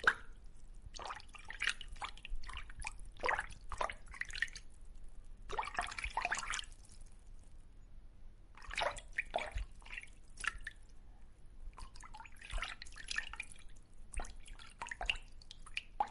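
Irregular small splashes and drips of water, coming in uneven clusters.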